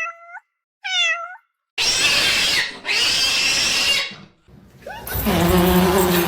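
A cat meows twice, short falling calls. Then comes a loud, harsh noise lasting about two seconds, and about five seconds in a loud steady droning tone begins.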